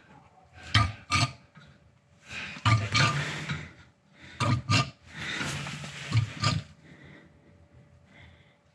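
Gear oil, Liquid Moly 75W-90, glugging out of an upturned plastic bottle into a drivetrain fill hole, the bottle gurgling in uneven bursts as air is drawn back in. The gurgles stop about two thirds of the way through, leaving faint sound.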